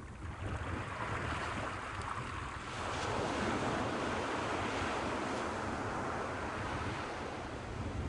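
Surf washing up a sandy beach: a wave breaks and rushes in, swelling to its loudest about three seconds in and slowly easing off. A steady low rumble of wind on the microphone runs underneath.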